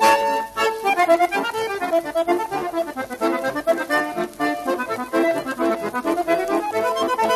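Background music: an instrumental tune of quick, short notes.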